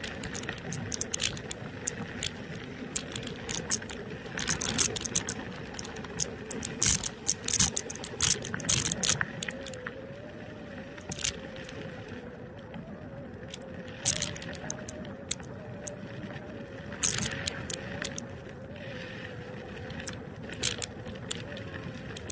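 NIU KQi2 electric scooter riding along a paved path: a faint steady motor whine that wavers slightly in pitch, under tyre and wind noise, with frequent sharp rattles and clicks as it goes over bumps, most of them in the first half.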